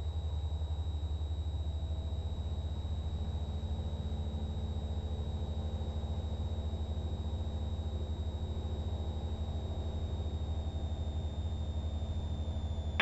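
Light training aircraft's piston engine running steadily, heard inside the cockpit through the intercom, with a thin steady high whine over the engine drone.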